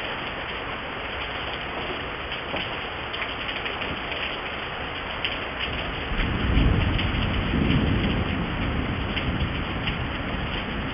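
Steady rain falling, with close drops clicking. About six seconds in a low rumble of thunder swells and dies away over a few seconds.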